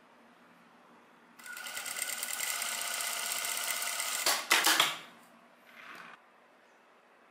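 Sewing machine stitching in a fast run of about three seconds, ending in a few louder clacks. A brief fainter run follows, then it stops.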